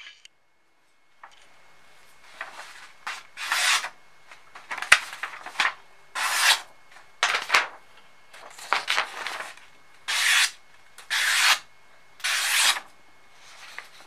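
A freshly made bowie knife's blade slicing a sheet of paper, about a dozen short cutting strokes, each under a second, starting about a second in: a paper-cutting sharpness test.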